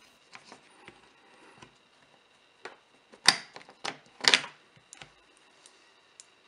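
Sharp metal clicks and clacks of a Ruger 22/45 pistol's mainspring housing and its latch being worked free and pulled out of the grip frame during disassembly. There are several separate clicks, the loudest a little past the middle.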